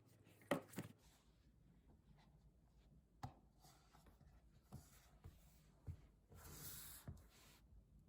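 Faint handling sounds: a few scattered light taps and clicks, with a short scraping rub about six seconds in.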